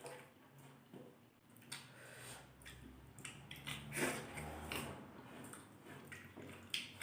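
Quiet eating sounds: chewing and biting, with small scattered clicks, a little louder about four seconds in.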